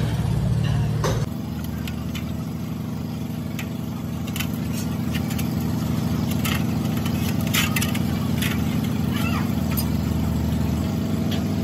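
A steady engine drone of a motor idling, with scattered short clinks and sloshes as a gearbox gear is washed by hand in a basin of cleaning fluid.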